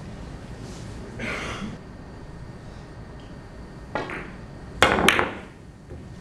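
A carom billiards shot: the cue tip strikes the cue ball with a sharp click, and about a second later two louder clicks come close together as the balls collide.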